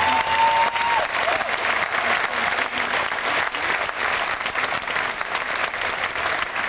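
Large outdoor crowd applauding and cheering, with one held high note from someone in the crowd at the start.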